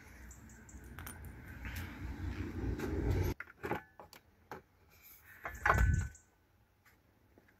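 Metal hand tools clinking and rattling, with knocks and scrapes of handling. One louder metallic clank with a short ring comes near the end.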